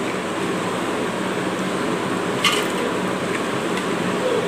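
A steady fan-like hum and hiss. About two and a half seconds in there is a short light clink as cooked horse gram is spooned into a stainless steel mixer jar.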